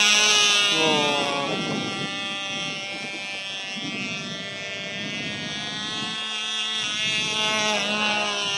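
Cox Babe Bee .049 (0.8 cc) two-stroke glow engine running flat out in a model plane in flight. It is loudest at the start as the plane passes close, its pitch drops about a second in, and then it goes on as a steady high-pitched whine as the plane flies off.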